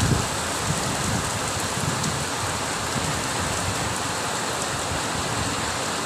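Heavy rain pouring down in a squall, driven by strong wind: a steady, even hiss.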